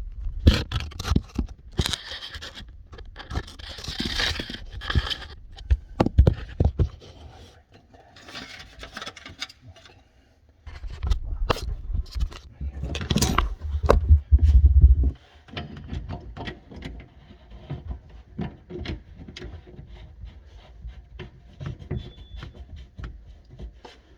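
Irregular clicks, knocks and scraping from garbage-disposal drain pipe parts and seals being handled and pushed into place, with a stretch of heavier thumping about halfway through.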